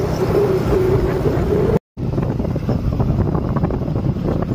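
Wind rushing over the microphone of a moving motorcycle, with the motorcycle engine running underneath. The sound cuts out for a moment about two seconds in.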